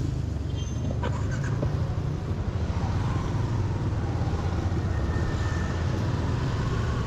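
Steady low rumble of riding a motorbike through city traffic.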